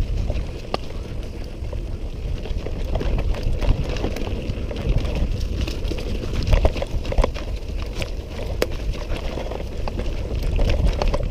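Mountain bike descending a rough dirt trail at speed: a steady low rumble of wind and tyre noise, with frequent sharp clicks and rattles as the bike goes over roots, rocks and leaves.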